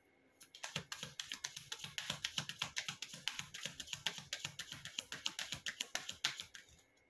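A deck of cartomancy cards being shuffled by hand: a quick, even patter of card clicks that starts about half a second in and stops near the end.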